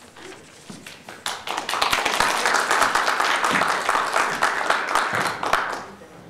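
Audience applauding, a dense patter of many hands clapping. It starts about a second in, holds through the middle and dies away near the end.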